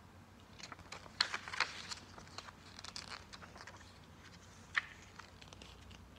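Hands handling CD packaging: a run of crinkling, tearing crackles for about three seconds, then a single sharp click near five seconds in.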